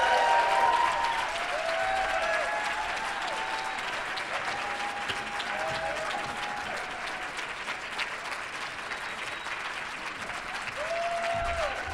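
Audience applauding a speaker's welcome, loudest at the start and easing a little through the middle.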